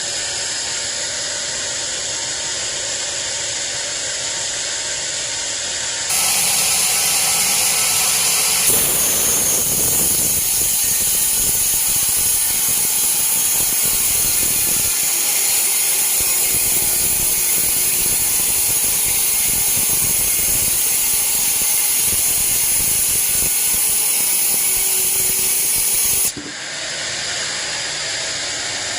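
Sawmill band saw running steadily as it cuts a teak log. A louder, hissier stretch starts abruptly about six seconds in and drops away just as abruptly near the end.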